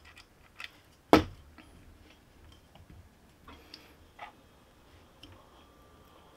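Handling noise from 3D-printed plastic parts on a tabletop: one sharp knock about a second in, as the assembled turner is set down, then a few faint clicks and taps.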